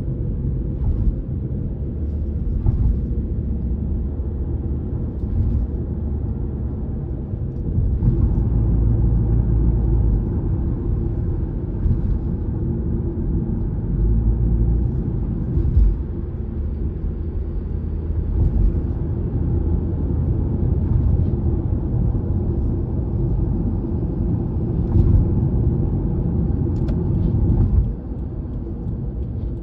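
Car road noise on an elevated expressway: a steady low rumble of tyres on the road, with short knocks every few seconds as the tyres cross the bridge's expansion joints. The level drops a little near the end.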